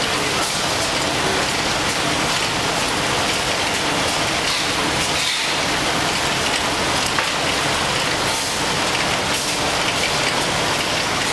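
Automatic facial tissue production line running: a steady, dense machine noise with fine, rapid clicking from the conveyors and mechanisms, unchanging throughout.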